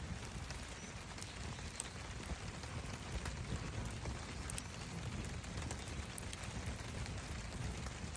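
Wood campfire burning, with scattered small crackles and pops over a steady low rumble and hiss.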